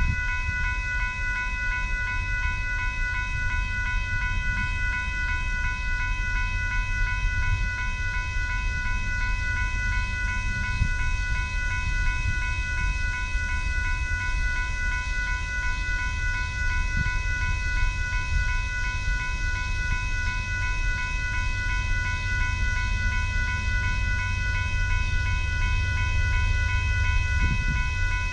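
Railroad crossing warning bell ringing steadily as the crossing signals flash, a sign that the crossing has been activated for an approaching train. Under it is a steady low rumble.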